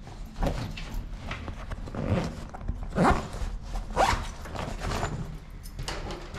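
Backpack zipper being pulled in several short strokes, the loudest about three and four seconds in.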